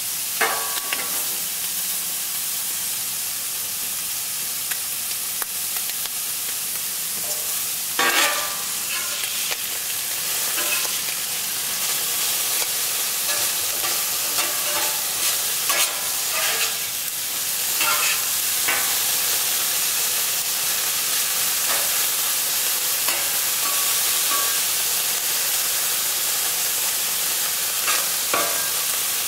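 Diced ham frying in canola oil on a Camp Chef steel flat top griddle, a steady sizzle that grows louder partway through as more ham goes down. Short scrapes and taps come now and then, with a metal spatula working the ham near the end.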